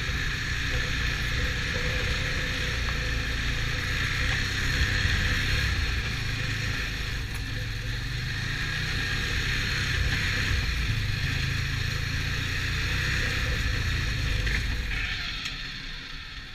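Stels Vityaz snowmobile engine running steadily under way, fading away near the end.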